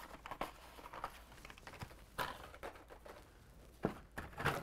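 Hot Wheels blister-pack cards being handled and pulled from a cardboard shipping case: scattered light rustles and clacks of plastic blisters and card against each other and the box, with a few sharper clacks about two seconds in and near the end.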